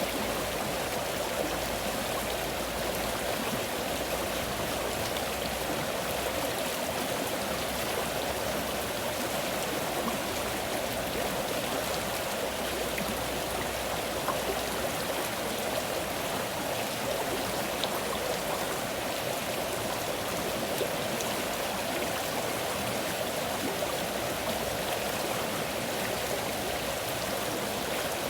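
Water of a stream flowing steadily, an even unbroken rush.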